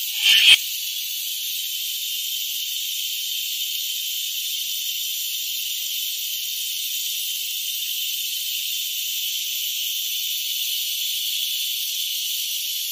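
Steady high hiss of batter cooking in a hot cast-iron ashkiliya mould pan, with a couple of short clicks at the very start.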